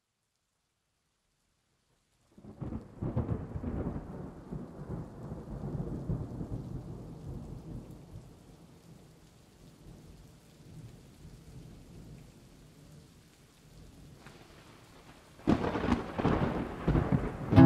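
Rolling thunder with rain, starting after about two seconds of silence. It rumbles loudest for the next few seconds, fades to a low hiss, then swells again near the end.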